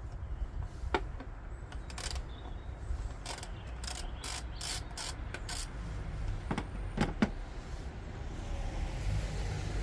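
Socket and ratchet on the bolt holding a car's ignition coil: a run of sharp metallic clicks and knocks, mostly in the middle of the stretch, over a steady low rumble.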